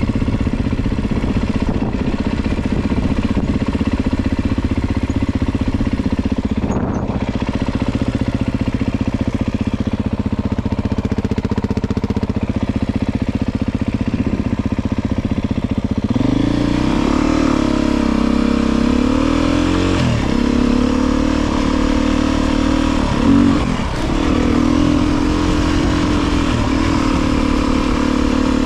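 Beta 350 RR enduro motorcycle's single-cylinder four-stroke engine running at a steady pitch. About halfway through it steps up in revs, and its pitch then rises and falls with the throttle as the bike rides along.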